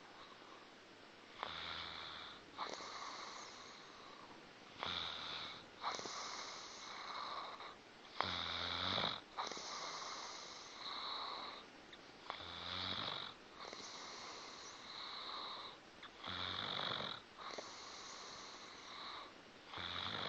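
A sleeping pet snoring in a slow, even rhythm, about one breath every four seconds. Each breath is a short buzzing snore followed by a longer, breathy rush of air.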